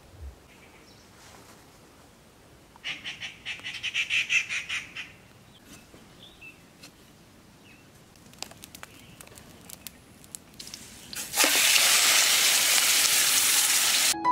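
A bird's rapid repeated call for about two seconds against quiet outdoor ambience, with a few scattered clicks. Then comes a loud, steady rushing noise for about three seconds that cuts off suddenly.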